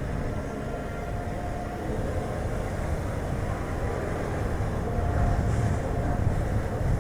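Chevrolet Spark light car driving, with steady rumbling road and wind noise and a faint engine hum, growing a little louder toward the end.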